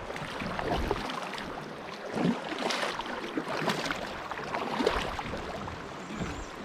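River water splashing and rippling around a kayak, with a scatter of small irregular splashes.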